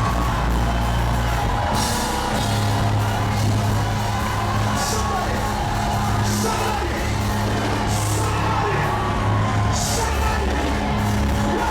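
Live gospel worship music from a church band, with sustained bass notes and voices singing and calling out. A bright crash comes every second or two.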